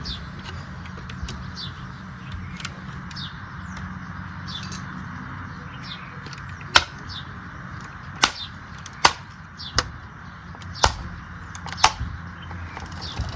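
Handling of a die-cast model car, heard as sharp clicks and taps, about seven of them in the second half, over a steady background hiss.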